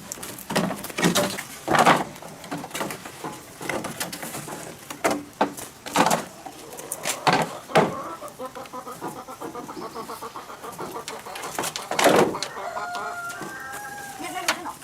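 Chickens clucking in a rapid run of short notes, then a drawn-out call that rises and falls near the end. Sharp knocks come repeatedly through the first half.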